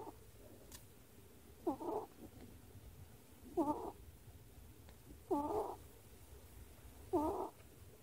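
A sleeping ferret snoring: short, pitched snores, one about every two seconds, four in all.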